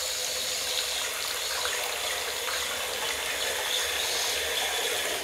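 Bathroom basin tap running hard into a ceramic wash hand basin, a steady splashing gush as the bowl fills with the stopper in.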